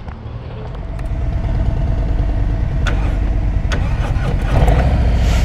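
Harley-Davidson Road Glide's V-twin engine running at low speed, a steady low rumble that grows louder about a second in.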